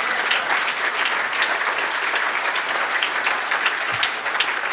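Audience applauding: a dense, steady clatter of many hands clapping, greeting a successful live hacking demonstration.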